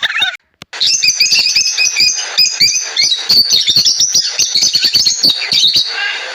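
Birds chirping in quick, dense succession of short high calls, starting just under a second in.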